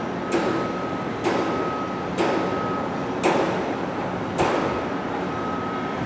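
Hammer striking steel five times, about one blow a second, each with a short metallic ring, over steady background noise.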